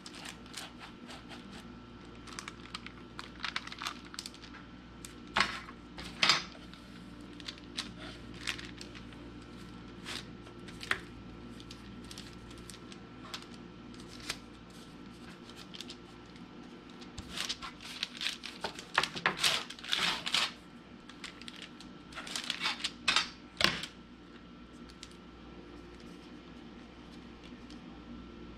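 Scattered rustles, taps and clicks of hands working cookie dough on parchment paper over a wooden cutting board: a metal cookie cutter pressed into the dough and a small knife trimming around it. Under it runs a faint steady hum.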